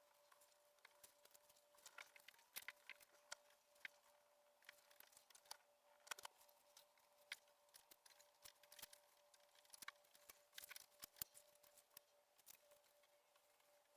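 Faint, irregular clicks and light rustles of show ribbons being handled and hung on a rack, over a faint steady hum.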